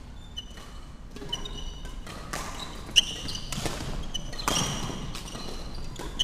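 Badminton rally: rackets striking the shuttlecock every second or so, the sharpest hit about three seconds in, with court shoes squeaking briefly and repeatedly on the wooden hall floor.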